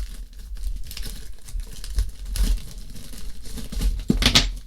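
Plastic packaging crinkling and rustling as cables are handled and unwrapped, with a louder rustle about four seconds in.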